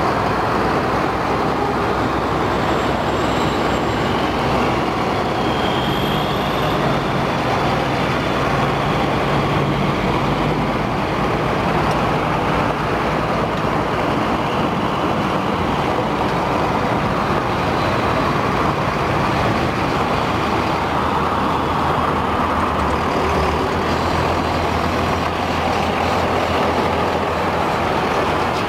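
International 4900 truck's diesel engine running as the truck drives slowly across a dirt yard: a steady engine drone whose hum sits lower in the second half.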